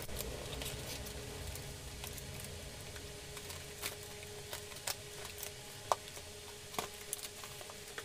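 A cardboard parcel and its plastic wrapping being opened and handled: scattered small clicks and crinkles, a few sharper ones, over a faint steady hum.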